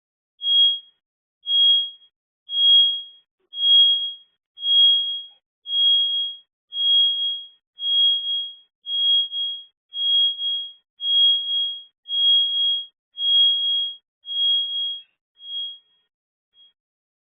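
A high-pitched electronic alarm beeping about once a second, some beeps doubled, fading out near the end.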